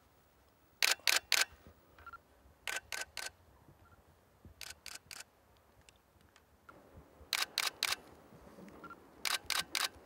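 Digital SLR camera shutter firing in continuous bursts: five quick runs of three or four frames each, a couple of seconds apart.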